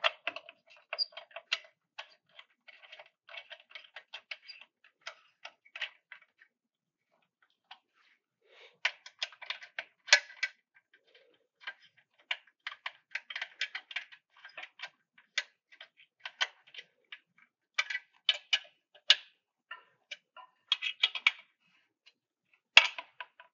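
Irregular metal clicks and ticks of a hex key turning in and re-seating on the screws that fasten the galvo laser tower's base to the aluminium plate, with a short pause about seven seconds in.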